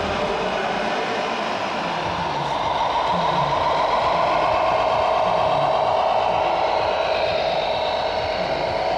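Radio-controlled model vehicle running: a steady whine that grows louder about three seconds in.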